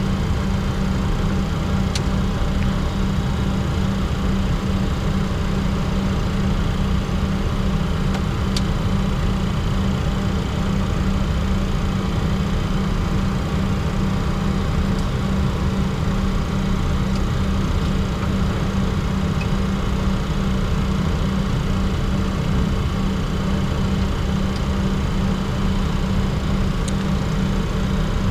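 Steady cockpit noise of a Bombardier Challenger 604 on the ground with both General Electric CF34-3B turbofans running at idle after start: a constant low hum with an even hiss above it, and a couple of faint clicks.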